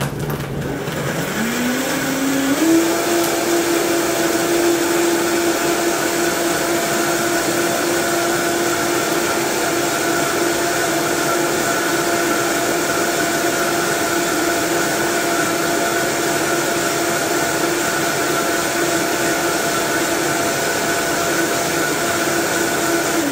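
Vitamix blender running on a thick green smoothie. The motor winds up in steps over the first few seconds, then runs steadily at high speed and stops right at the end.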